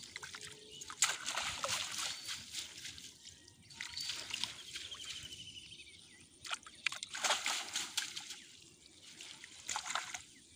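Water sloshing, splashing and trickling as a mesh ring-net (china net) fish trap is lifted and shaken in shallow water, in several separate bursts with quieter dripping between them.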